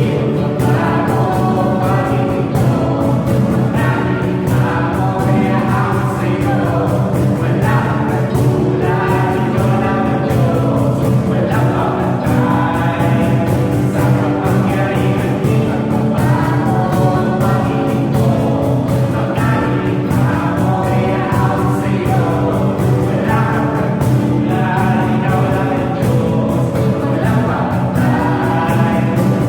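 Contemporary worship song: several voices singing together over a band with a steady beat.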